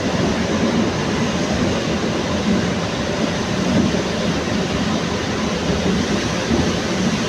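Kolkata Metro train running on its track during a test run: a steady, even rumble with no breaks.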